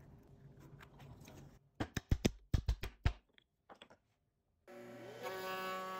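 A quick run of light knocks and clicks from a wooden workpiece being handled on the bench, followed by two fainter clicks. Background music with steady held notes starts near the end.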